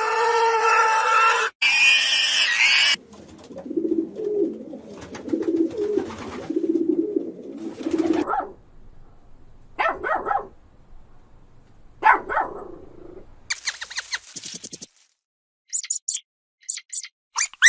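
A string of short animal calls, one clip cut after another. It opens with a long pitched call, then comes low rhythmic grunting. After that there are dog-like yelps and barks that rise in pitch, three of them a couple of seconds apart, and a few quick high chirps near the end.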